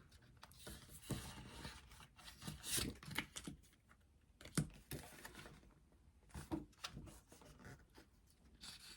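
Faint rustling and crinkling of album packaging, paper and plastic being handled, with scattered light taps and one sharper click about halfway through.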